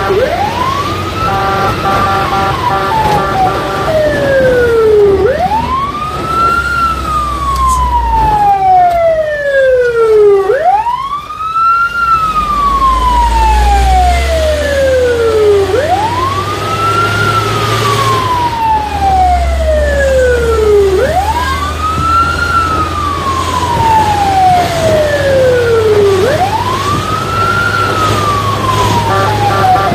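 Fire truck siren wailing, heard from inside the cab: each cycle rises quickly, then falls slowly, repeating about every five seconds. A low engine rumble runs underneath, and a short stepped tone pattern is heard near the start and again at the very end.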